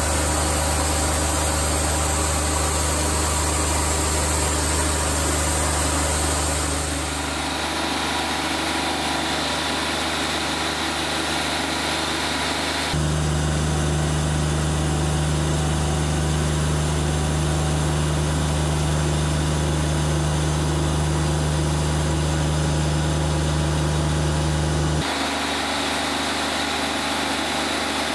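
Wood-Mizer LT40 Wide portable bandsaw mill running, its engine droning steadily while the saw head cuts slabs from a walnut log. The sound changes abruptly three times.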